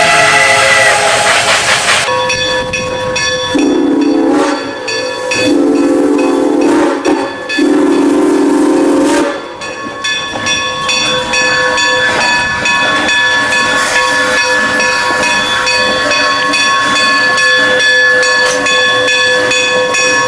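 Steam locomotive sound effects: a multi-note steam whistle ends about two seconds in, then three lower whistle blasts sound over steady steam hiss, which runs on with a constant whine after the third blast.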